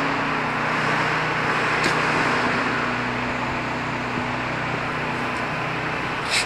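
Steady mechanical droning noise with a low hum underneath, with a short rustle or scrape near the end.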